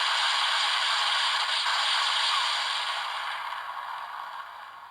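A steady hissing noise effect from a CSM Lockseed toy's speaker. It fades out over the last couple of seconds.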